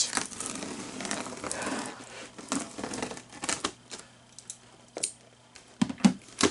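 Packing tape being pulled and peeled off a cardboard box, a crackling, tearing rustle, followed by scattered sharp clicks of cardboard and a couple of louder knocks near the end.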